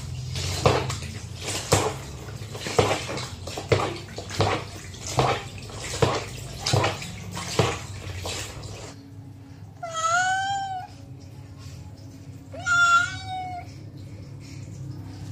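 Water splashing in a plastic basin as a kitten is doused again and again from a scoop, roughly one splash a second. After a sudden change in the background, the kitten meows twice, two long meows about three seconds apart.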